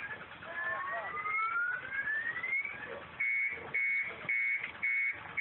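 Car alarm sounding: a rising whoop that sweeps up in pitch and cuts off. About three seconds in it switches to a steady high beep repeating about twice a second.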